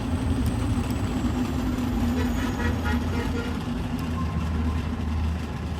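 A motor running steadily with a low hum, switching on or cutting in abruptly right at the start.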